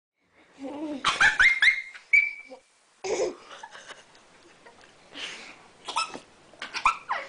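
Baby squealing and laughing with excitement at mealtime, in short high-pitched bursts with sliding pitch, loudest about a second in, a brief pause near the middle, then more bursts.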